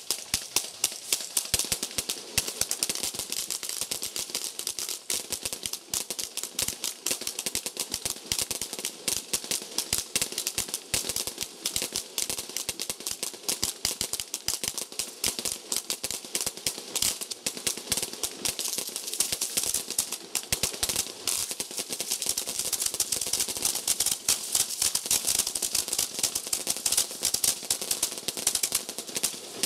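Fireworks finale firing at close range: racks of tubes going off in rapid succession, a dense, continuous stream of sharp pops and cracks with no pauses.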